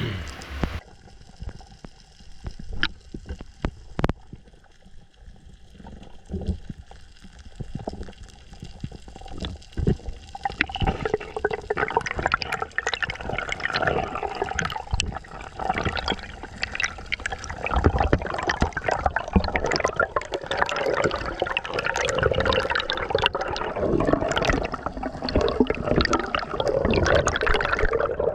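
Water sounds picked up by an underwater camera on a spearfishing dive: scattered sharp clicks at first, then a dense bubbling and sloshing sound from about ten seconds in.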